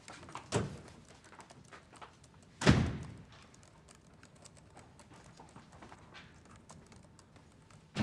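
An office door thudding shut a little under three seconds in, with a softer knock shortly before it. Light clicking of laptop keys runs throughout, and another thud comes right at the end.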